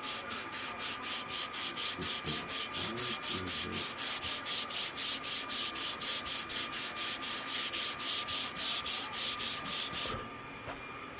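Sandpaper rubbed back and forth by hand over a plaque in final sanding, in an even rhythm of about four strokes a second that stops suddenly about ten seconds in.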